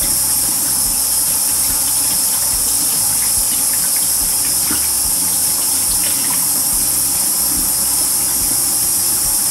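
Kitchen sink tap running steadily: an even, loud hiss of water that cuts off suddenly near the end.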